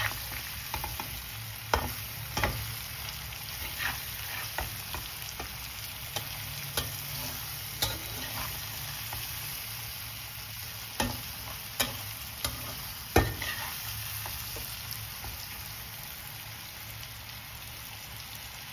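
Elephant yam strips frying in oil in a metal kadai, sizzling steadily, while a slotted metal spatula stirs them with irregular sharp clinks and scrapes against the pan. The clinks stop a few seconds before the end, leaving only the sizzle.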